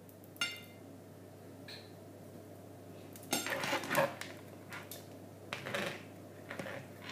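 Kitchen clatter of dishes and cutlery being handled: scattered clinks and knocks, busiest about three to four seconds in and again near six seconds, over a low steady hum.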